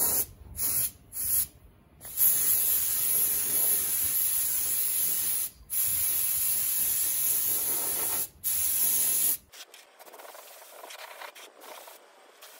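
Compressed-air paint spray gun hissing as basecoat is sprayed onto a motorcycle fuel tank. It starts with a few short bursts, then runs in long steady passes broken by two brief pauses, and stops abruptly about three-quarters of the way through.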